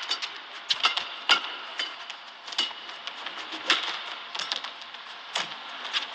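Badminton rally in a men's doubles match: sharp racket strikes on the shuttlecock at an uneven pace, roughly a dozen in six seconds, over a steady arena hum.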